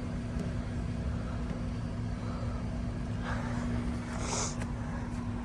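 Outdoor heat pump condenser units running: a steady hum from the compressor and condenser fan motor.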